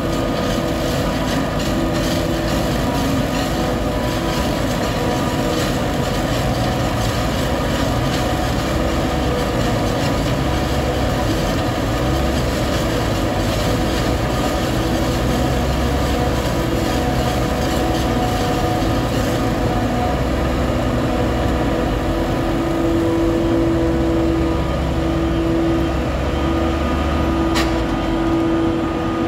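Claas self-propelled forage harvester running at work, chopping maize and blowing it into a trailer: a steady mechanical drone with a constant whine, mixed with a compact tractor's engine.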